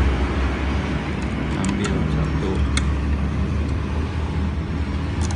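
Steady low vehicle rumble with a few light clicks and taps scattered through it.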